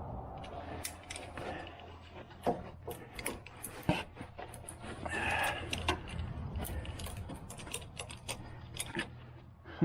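Metal hand tools clinking and rattling as they are handled, a run of irregular sharp clicks with the loudest about two and a half and four seconds in.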